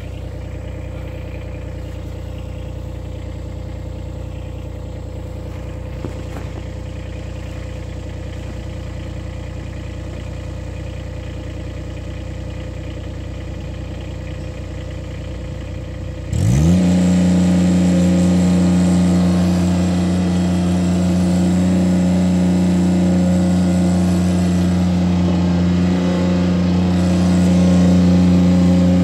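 Ditch Witch SK600 mini skid steer's diesel engine idling steadily. About sixteen seconds in it is throttled up quickly, rising in pitch, and then runs steady and louder at high revs.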